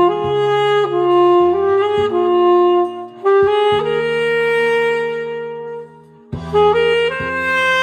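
Saxophone playing a slow song melody in long held notes over an accompaniment, with a short break about six seconds in before the phrase starts again.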